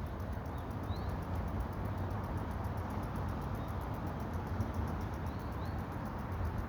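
Steady rushing noise of the sea, with a few faint, short high bird chirps about a second in and again past the middle.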